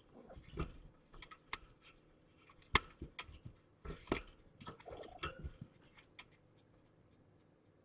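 Kittens moving and playing: scattered light scratches, taps and small knocks, with one sharper knock about three seconds in. The activity dies away after about six seconds.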